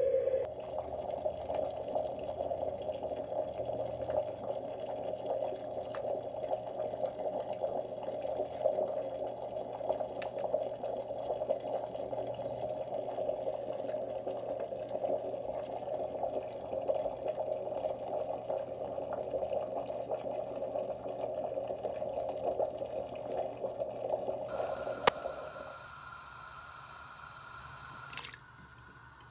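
Water running steadily from a kitchen tap, shut off suddenly about 25 seconds in. A faint, steady, high-pitched tone carries on afterwards.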